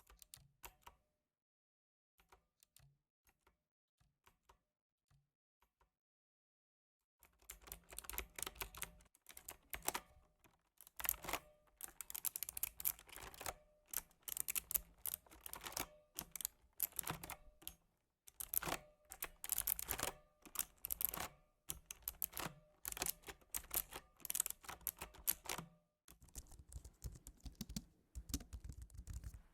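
Typing on a computer keyboard. A few faint, scattered key taps at first, then from about a quarter of the way in, bursts of fast, continuous typing in runs of a second or two.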